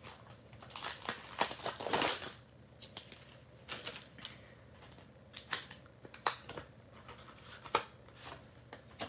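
Clear plastic packaging sleeve rustling and crinkling as it is handled and opened. A burst of louder crinkling comes about a second in, followed by scattered short rustles and clicks.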